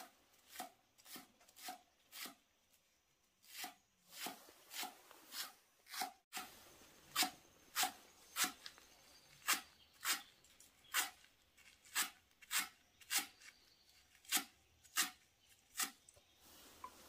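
Cleaver chopping spring onions on a thick round wooden chopping block: a steady run of sharp knocks, a little under two a second, with a short pause near the start.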